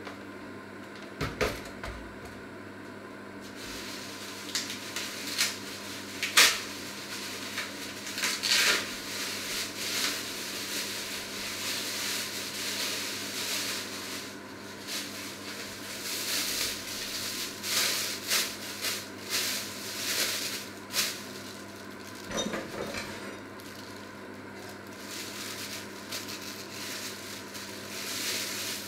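Scattered knocks, clicks and clatter of kitchen handling with rustling, over a steady low hum; the sharpest knock comes about six seconds in.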